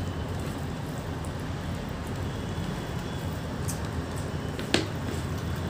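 Steady background hiss and low hum under a quiet meal eaten by hand, with a few faint clicks and one sharp click near the end.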